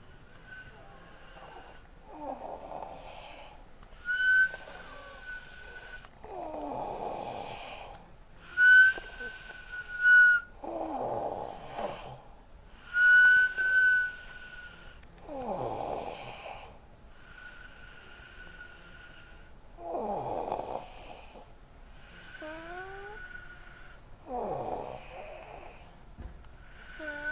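A 13-year-old boy snoring in his sleep. Rasping snores alternate with a thin, high-pitched nasal whistle, one breath about every two to four seconds. The whistles are the loudest parts.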